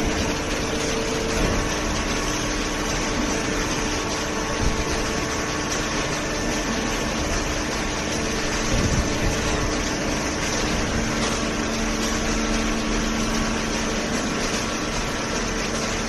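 Waste-paper baling line running: the hydraulic baler and its feed conveyor give a steady mechanical hum with a few held tones.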